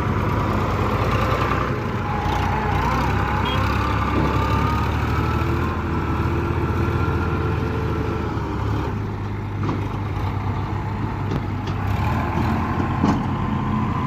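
Sonalika tractor's diesel engine running steadily, its speed shifting a few times, around two seconds in, about nine seconds in and again about twelve seconds in.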